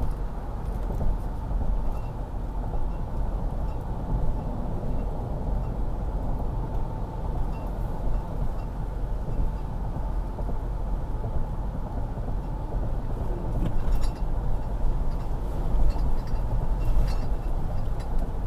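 Steady road and engine noise heard from inside a moving vehicle's cabin, mostly a low rumble, with a few faint ticks near the end.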